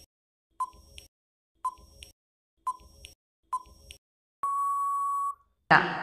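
Countdown timer sound effect: four short beeps about a second apart, then one longer, steady beep lasting about a second that marks time up.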